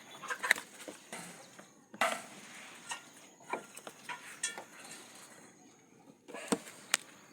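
Scattered clicks and knocks of plastic and metal parts and screws being handled as a small washing machine is reassembled, a few with a brief ringing.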